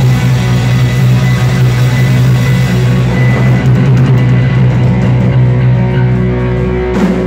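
Live rock band playing loud: electric guitars, bass guitar and drum kit. Near the end the high end thins out and a single sharp hit cuts through.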